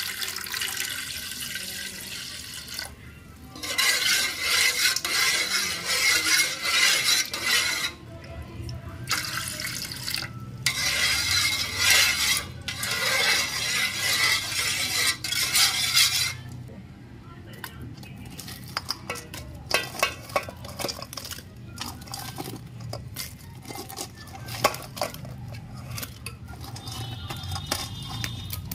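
Water poured from a steel bowl into a steel bowl of curd, in several long pours with short breaks, then, from about halfway, a spoon clinking and scraping against the steel bowl as the curd-water is stirred.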